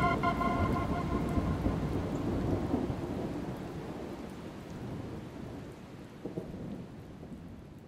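Rain and rolling-thunder sound effect at the close of a song's backing track, fading out gradually. A held organ-like chord dies away in the first second and a half.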